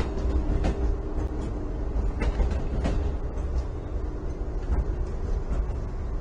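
Train running past on the tracks: a steady low rumble with a faint hum and scattered clicks.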